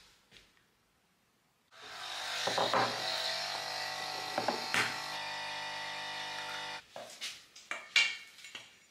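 A small electric motor buzzes steadily for about five seconds, starting and stopping abruptly, with a few light clicks over it. Sharp clicks and knocks follow, the loudest about eight seconds in.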